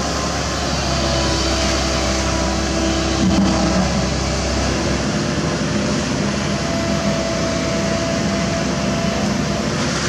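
Komatsu PC195LC hydraulic excavator's diesel engine running steadily under load while the arm and bucket dig in a flooded, muddy pit. The deep low rumble drops away about halfway through.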